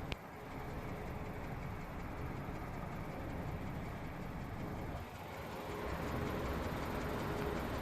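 Skoda Octavia A7's 1.2 TSI turbocharged four-cylinder petrol engine running, a steady mechanical noise that dips briefly about five seconds in and then runs slightly louder.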